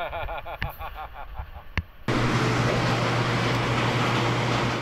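Hydraulic press pump motor switching on suddenly about two seconds in and running with a steady hum and a loud hiss. Before it there are two sharp clicks.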